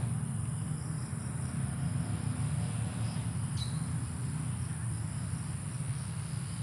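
Crickets or other insects trilling at dusk: a steady high trill with faint pulsing chirps, and one short chirp a little past halfway. A low steady rumble lies underneath.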